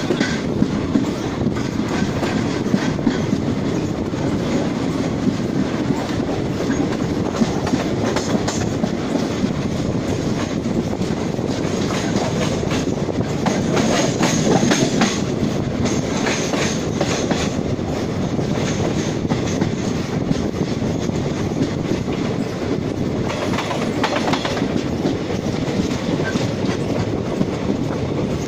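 Passenger train running at speed, heard from one of its coaches: a steady rumble of the wheels on the track with rapid clattering clicks, a little louder in the middle.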